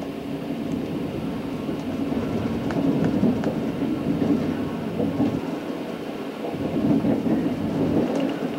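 Passenger train running on its rails, heard from inside the carriage: a steady, fluctuating rumble with a few faint clicks from the wheels.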